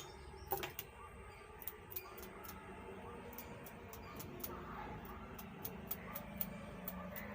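Light, irregular clicks and taps of small tools and parts being handled on a workbench, about two or three a second, over a faint steady hum.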